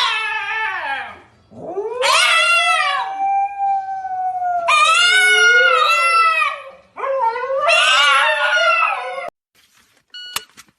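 A dog howling: four long, wavering howls one after another, then a few short clicks near the end.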